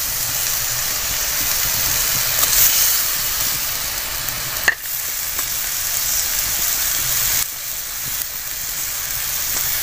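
Spiced masala water boiling hard in an iron kadai, a steady sizzling hiss, as fried fish are tipped in from a bowl. There is one sharp knock about halfway through.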